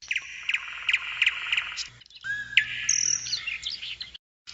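Birds chirping and singing, several short calls over a fast trill. The sound drops out completely for a moment near the end.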